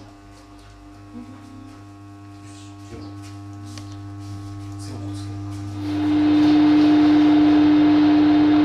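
Airtightness-test blower fan mounted in a window, starting up to draw air out of the house: a steady hum grows gradually louder, then about six seconds in it jumps to a loud steady whir with a strong hum tone.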